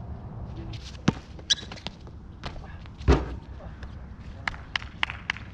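Basketball bouncing on an outdoor hard court: a few separate bounces, a heavier thump about three seconds in, then a run of quicker, lighter taps near the end.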